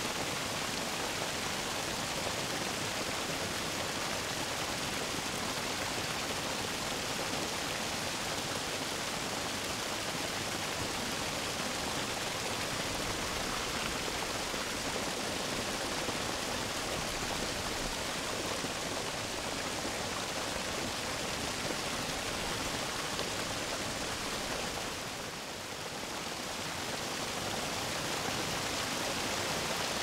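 Small waterfall spilling over a rock ledge into a shallow creek: a steady close-up rushing and splashing of water, picked up by a shotgun mic held over the falls. The sound briefly drops a little about 25 seconds in.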